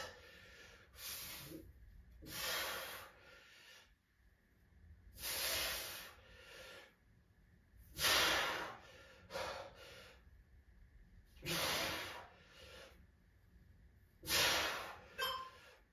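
A man breathing hard under exertion during a dead bug core exercise: forceful exhalations, one every two to three seconds, with quiet between them.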